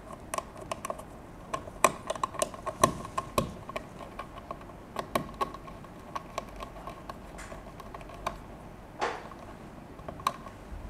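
Small screwdriver working the screws of a green pluggable screw-terminal block, tightening the power wires in: irregular light clicks and taps.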